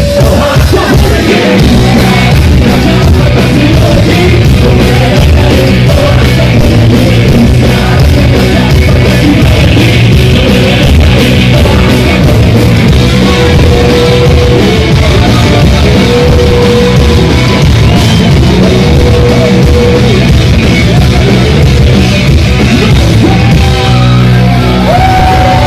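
Loud live rock music from a band on stage, with sung vocals holding long notes over guitars and drums.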